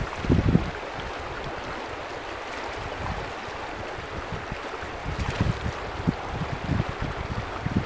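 Shallow river running over a gravel bed, a steady rush of water, with wind buffeting the microphone in low gusts just after the start and again through the second half.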